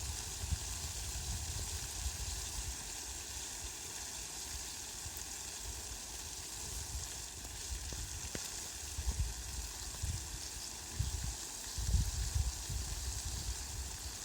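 Heavy rain falling on leafy plants: a steady dense hiss. Irregular low rumbling gusts come and go, stronger in the second half.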